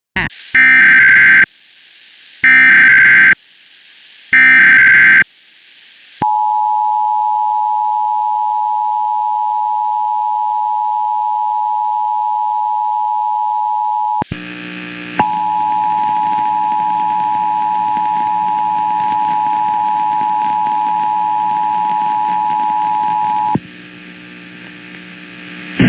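Emergency Alert System signal from a Spectrum DTA cable box: three short bursts of screeching SAME header data tones, then the steady two-tone EAS attention signal. The attention signal breaks off briefly about fourteen seconds in, resumes with a lower buzz beneath it, and stops about two seconds before the end.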